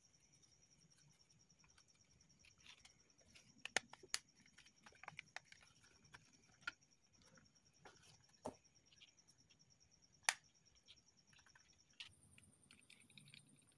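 Faint scattered clicks and taps of a plastic TV remote control's casing and parts being handled, a few sharper clicks standing out, over a faint steady high whine that jumps higher near the end.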